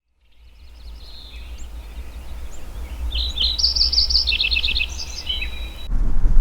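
Small birds singing, with chirps and a quick trill, over a steady low wind rumble as the sound fades in. Near the end it cuts off suddenly and gives way to louder wind noise on the microphone.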